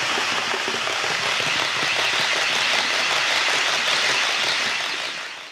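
Model train rolling past on its track, a steady rushing rattle of wheels on the rails with faint fine ticking. It fades out near the end.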